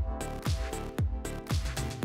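Background music: an upbeat electronic dance track with a steady kick drum about twice a second, hi-hat ticks and sustained chords.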